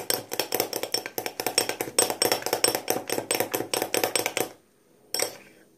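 Metal fork clicking quickly against a glass bowl while stirring thick glue-and-liquid-detergent slime, about seven strokes a second. The stirring stops about four and a half seconds in, and one last click follows.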